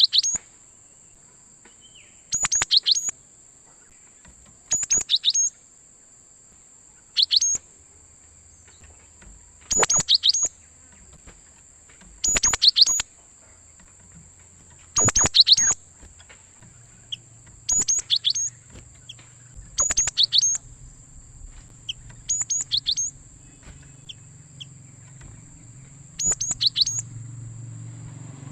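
Cinereous tit (gelatik batu) calling: short bursts of rapid, sharp high notes, repeated about every two and a half seconds, eleven times in all. A steady high whine runs beneath the calls, and a faint low hum comes in around the middle.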